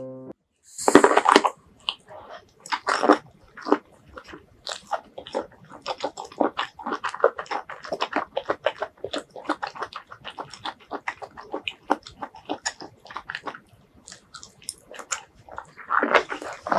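Close-miked biting and chewing of stir-fried vegetables in chili and garlic sauce: a crisp bite about a second in, another around three seconds, then steady wet chewing with quick clicking mouth sounds, and another bite near the end.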